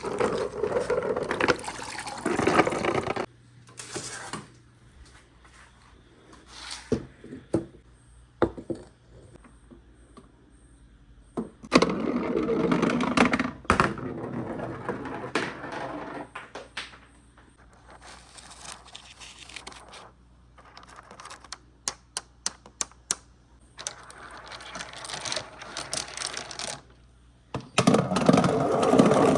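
Marbles rolling and clattering along a wooden marble-run track. There are several stretches of rolling rumble a couple of seconds long, one at the start, one in the middle and one near the end, with many sharp clicks of balls knocking against the wood between them.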